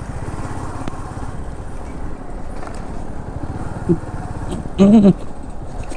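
Royal Enfield Meteor 350's single-cylinder engine running steadily at road speed, a dense low pulsing from the exhaust. A brief voice cuts in about five seconds in.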